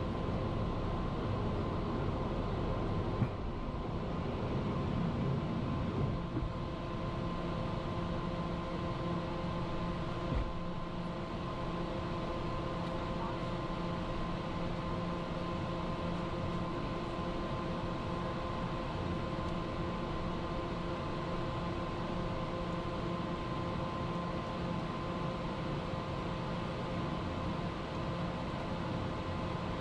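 Inside a private jet's cockpit during takeoff and climb-out: the steady hum of the jet engines and airflow, with several steady tones. The heavier runway rumble eases about six seconds in as the jet leaves the ground, and there is a brief thump about ten seconds in.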